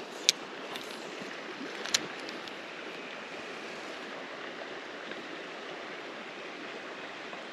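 Steady rush of a shallow creek flowing over rocks, with two sharp clicks about a second and a half apart in the first two seconds.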